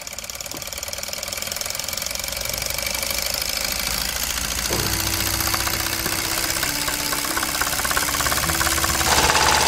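Toy live-steam stationary engine running fast, its cylinder and flywheel making a rapid, even ticking clatter. The sound grows louder over the first few seconds and steps up again near the end.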